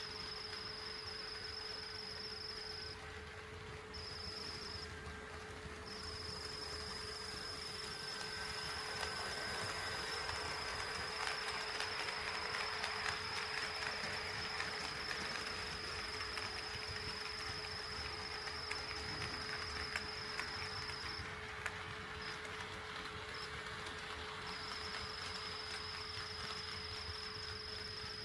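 HO-scale model train running on the layout: a rolling noise that swells in the middle and fades again, over a steady high-pitched whine that cuts out briefly twice.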